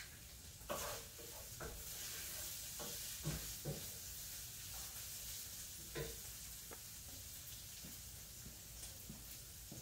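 Faint steady hiss with a few light clicks of small glass essential-oil bottles touching, as oil is dripped from an upturned dropper bottle into another bottle.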